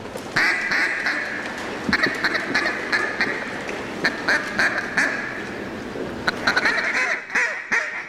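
Loud, rapid mallard-style quacking and chatter: many quacks in quick succession, easing off near the end.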